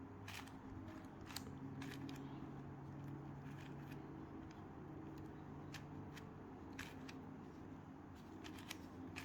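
Layers of a plastic 4x4x4 Rubik's Cube being turned by hand: a run of faint, irregular clicks and clacks.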